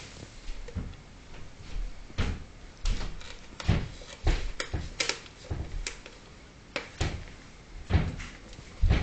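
Ferrets tugging and dragging shoes across a hardwood floor: irregular knocks and thumps as the shoes bump on the boards, the loudest near the end.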